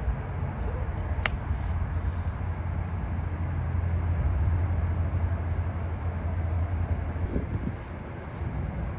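A golf iron strikes the ball once, a sharp click about a second in, over a steady low rumble.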